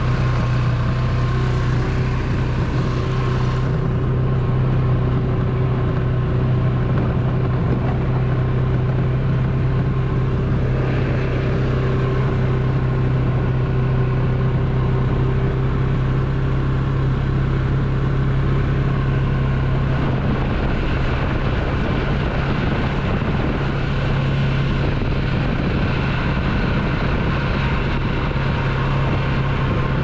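Polaris 570 four-wheeler's single-cylinder engine running steadily at an even speed while the ATV is ridden along a trail.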